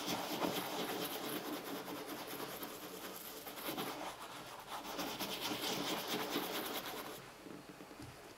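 Cloth rubbing wax shoe polish into the black leather upper of an R.M. Williams parade boot in fast, steady strokes. The rubbing fades out about seven seconds in.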